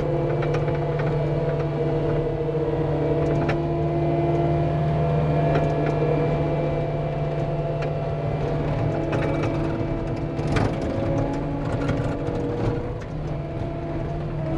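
Cat 259D compact track loader's diesel engine running steadily as the machine drives, with scattered short clanks and knocks.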